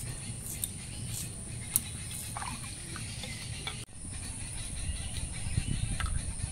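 Hard-boiled eggs being peeled by hand over a bowl of water: faint, scattered small crackles and taps of eggshell coming away, over a steady low outdoor rumble.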